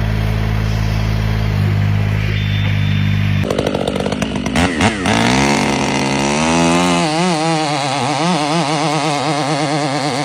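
A motor running steadily at a constant pitch, then, after an abrupt change about three and a half seconds in, a chainsaw running with its pitch wavering up and down over and over.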